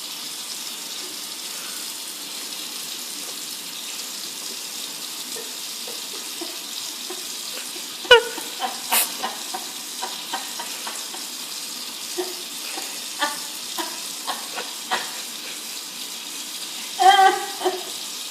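Steady hiss of running water, with scattered light clicks and clatters from about halfway through and a couple of short pitched sounds, one about 8 seconds in and another near the end.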